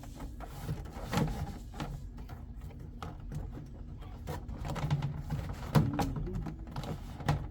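Scattered light clicks and knocks of parts being handled during door panel work, over a steady low hum, with a sharper knock about six seconds in.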